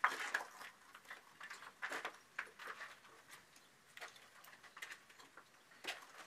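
Scattered light scrapes and taps at an irregular pace, as of hands and tools handling things during the work; no steady machine runs.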